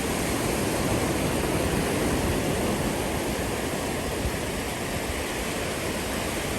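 Ocean surf washing in around the shallows, a steady rush of water with no distinct breaks.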